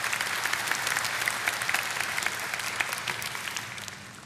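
A large congregation applauding, with many hands clapping together, fading away near the end.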